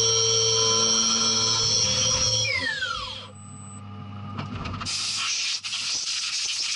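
Skyfire SVM-1 mini CNC mill spindle whining at speed, then spinning down with a falling pitch about two and a half seconds in as the cut ends. From about five seconds in, a compressed-air blow gun hisses as chips are blown off the vises.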